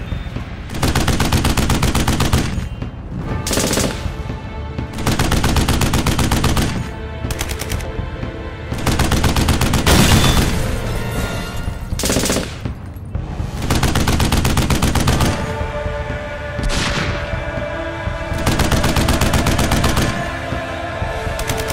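Repeated bursts of rapid machine-gun fire sound effects, each lasting one to three seconds with short gaps between, over background music.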